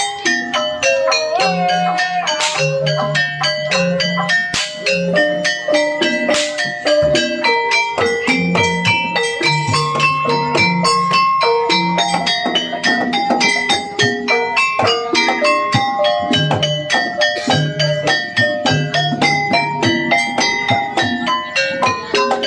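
Javanese gamelan music of the kind that accompanies kuda kepang dancing: struck metallophones play a busy, stepping melody over drums.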